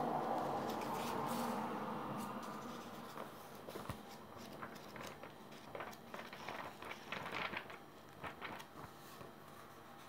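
Paper pages of a hardback book being turned and flipped, with quick crisp rustles and flicks from about three seconds in. A steady hum is there at first and fades out within the first two seconds.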